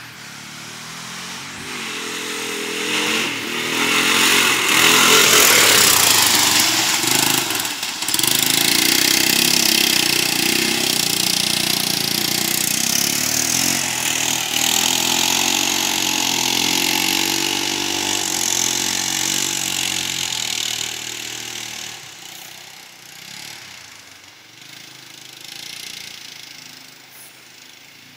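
Four-wheeler (ATV) engine revving up and down as it is ridden through mud. It grows louder over the first few seconds, stays loud through the middle, then fades away over the last several seconds.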